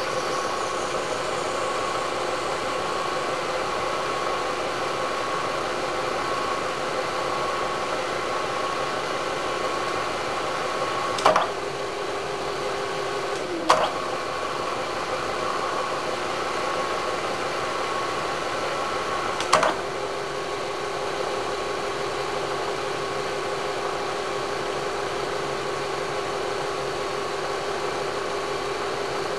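Milling machine spindle running steadily, cutting into a stripped main-bearing-cap bolt hole in a cast-iron Chevrolet 4.3 V6 block, with a steady hum and whine. Three sharp clicks, about 11, 14 and 20 seconds in, each come with a change in the whine's pitch.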